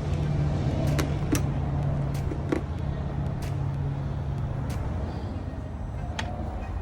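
Steady low hum of a running vehicle motor, with scattered sharp clicks; the hum fades out about five seconds in.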